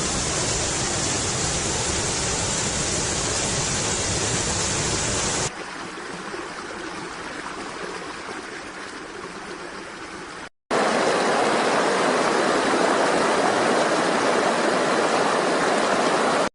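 Rushing water from a stream or waterfall: steady hissing noise that changes abruptly about five seconds in to a quieter, thinner rush. After a brief cut near two-thirds of the way through, it comes back as a fuller, louder rush.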